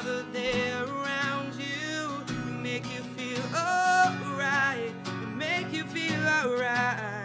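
A man singing long, wavering held notes over a strummed acoustic guitar.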